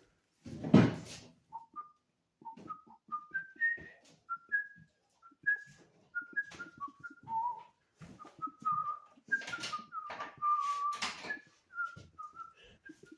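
A person whistling a tune in short notes that step up and down, over scattered clicks and scrapes, with a louder knock about a second in.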